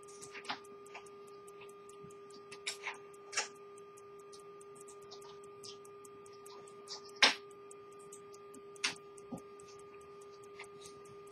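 Antique 1744 English pocket watch movement ticking with quick, even beats, over a steady hum. A few louder, irregular clicks stand out, the loudest a little past the middle.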